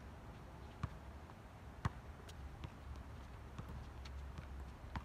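A basketball being dribbled and played on an outdoor hard court: scattered sharp bounces, the loudest about two seconds in, over a low steady rumble.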